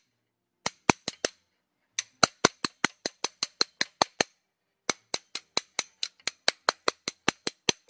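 Hammer tapping a metal seal driver to drive a new rear main seal into a Mazda Miata (Eunos Roadster) engine: sharp metallic taps, about five a second, in runs broken by short pauses at about one second and about four seconds in.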